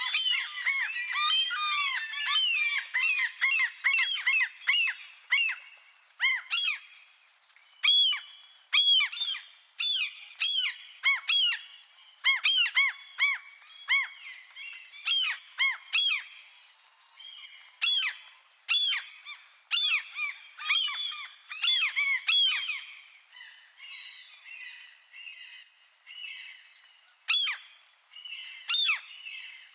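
A flock of gulls squawking: many short, arched cries overlapping thickly over the first six seconds or so, then thinning to scattered calls and bouts of several at once.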